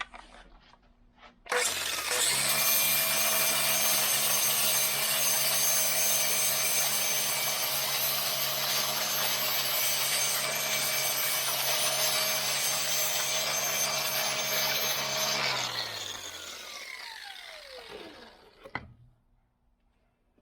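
Power tool fitted with a flap wheel, sanding rust off steel pliers: it starts about a second and a half in and runs steadily, then is switched off and winds down with a falling pitch.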